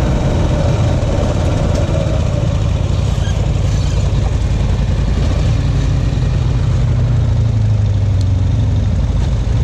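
Off-road trail vehicle's engine running steadily.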